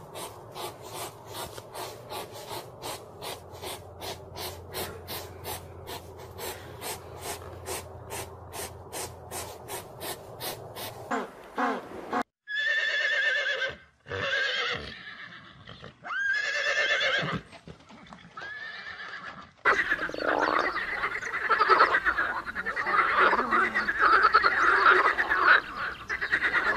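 A hedgehog snuffling in quick regular puffs, about two or three a second. About twelve seconds in, a horse neighs four times, and from about twenty seconds in a chorus of frogs croaks.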